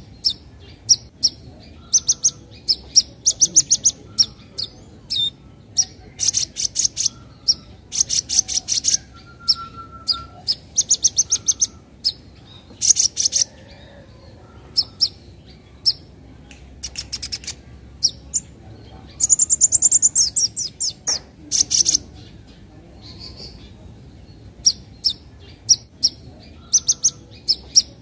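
Kolibri ninja sunbird in female plumage giving sharp, high 'nyecret' chirps and rapid chattering trills in short bursts every second or so. The longest and loudest rattling burst comes about two-thirds of the way through.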